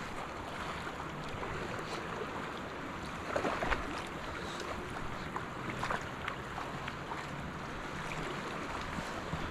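Steady rushing noise of wind and flowing creek water, with scattered faint knocks and a louder clattering rustle about three and a half seconds in.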